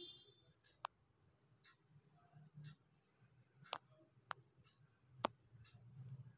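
Spatula stirring chopped onions in a kadhai of oil: faint, with a few sharp clicks as the spatula knocks against the pan.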